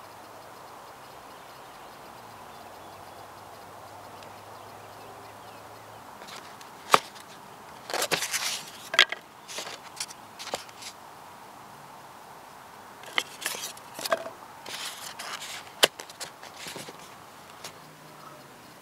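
Faint steady outdoor background, then two clusters of sharp clicks, knocks and short rustling scrapes. The loudest are single sharp clicks about seven seconds in and near sixteen seconds.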